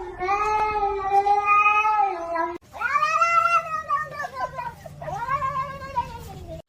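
A cat yowling in three long, drawn-out calls, the first ending abruptly, the last one shorter.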